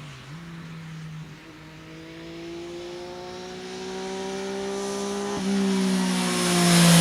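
Triumph Daytona 675's three-cylinder engine through an aftermarket TOR exhaust, pulling with its note rising slowly in pitch and growing louder as the bike approaches. There is a brief break in the note a little after five seconds in, and the sound is loudest at the very end.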